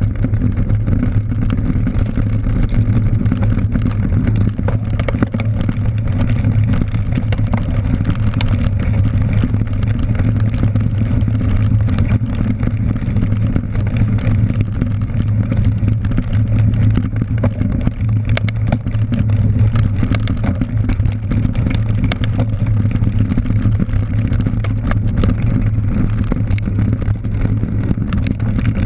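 Cyclocross bike ridden fast over bumpy grass, heard from a camera mounted on the bike: a loud, steady rumble of tyre and frame vibration and wind, with scattered clicks and rattles from the bike.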